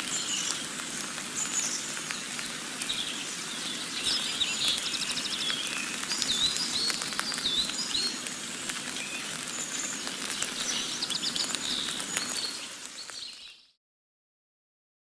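Steady rain with birds chirping and trilling over it. The sound fades out about thirteen seconds in, then drops to silence.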